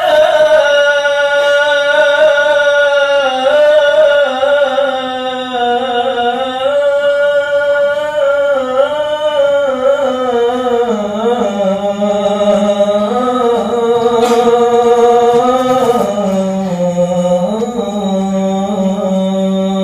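A muezzin calling the adhan, the Islamic call to prayer, in a single male voice: long, drawn-out phrases with ornamented turns. The voice steps down to a lower pitch in the second half.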